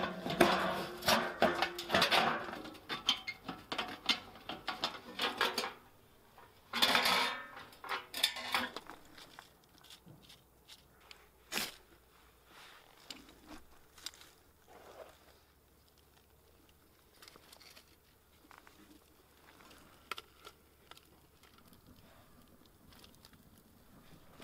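Corrugated iron sheet clattering and scraping against the stone kiln for the first few seconds, with another burst of clatter a little later; after that only sparse small clicks and snaps.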